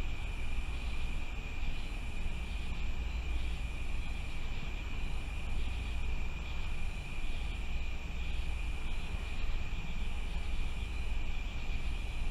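Night-time outdoor ambience: a steady chorus of insects, with one constant high trill and a higher call that pulses on and off about once a second, over a steady low rumble.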